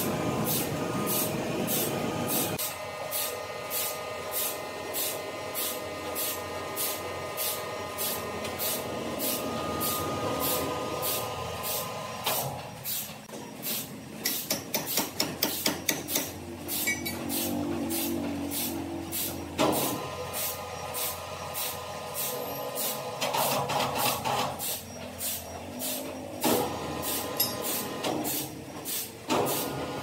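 Sawmill machinery running and sawing wood, a steady mechanical whine whose pitch shifts several times, with an even ticking about twice a second.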